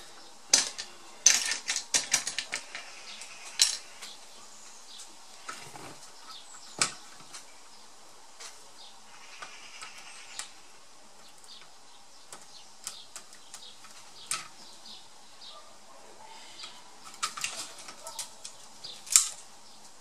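Sharp clicks, taps and plastic snaps from hands and a plastic pry tool working the motherboard free from an ASUS R556L laptop's plastic case. A dense run of clicks comes in the first few seconds, scattered ones follow, and there is one loud snap about a second before the end.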